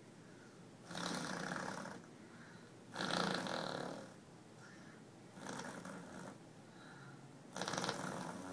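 Fake farting noises blown by a person, four separate blows of about a second each with short pauses between them.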